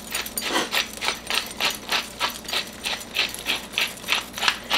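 Hand pepper mill grinding black peppercorns, twisted back and forth in a steady rhythm of short grinding rasps, about three a second.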